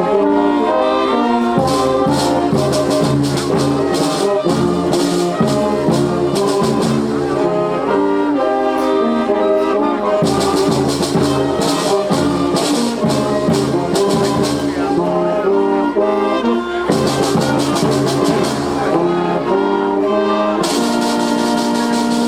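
School wind band playing a piece, with brass carrying a melody of held notes over a bass line. High percussion comes in and drops out in stretches.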